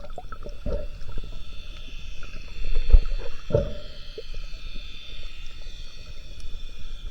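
Underwater ambience picked up by a camera in its housing: a steady high hiss with faint whining lines, broken by irregular low thumps and knocks, the loudest about three seconds in.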